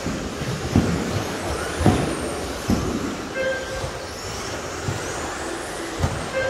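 Radio-controlled racing trucks running on a carpet track: a steady din of motors and tyres broken by several sharp thumps as trucks land from jumps or hit the barriers. A short beep sounds about halfway through.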